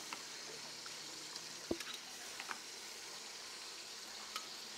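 Metal tongs clicking and soaked tomatoes, chiles, onion and garlic dropping into a glass blender jar: a few short, sharp taps, the loudest about halfway through, over a faint steady hiss.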